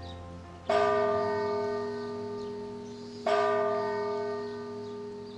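A single large Orthodox cathedral bell tolled slowly: two strikes about two and a half seconds apart, each ringing on and fading away.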